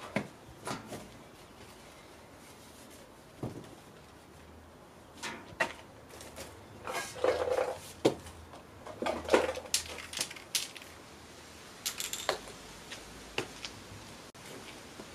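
Irregular knocks, scrapes and rustling of objects being handled and moved about.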